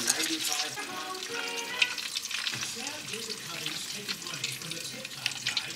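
Food frying in hot oil: a steady sizzle with a scatter of small crackles and pops, over faint background music.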